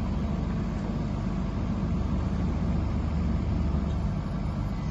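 A JCB 50Z mini excavator's diesel engine running steadily with an even, low hum.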